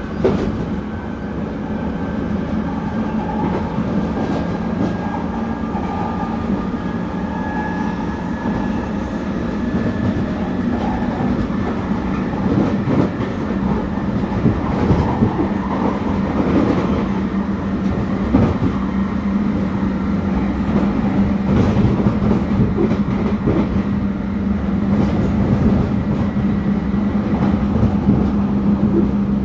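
Inside a London Underground 1996 Tube stock car accelerating at speed: the rumble of wheels on rail with scattered clicks over rail joints, a steady low hum, and a faint high whine from the traction equipment that slowly rises in pitch. The running noise grows a little louder as the train picks up speed.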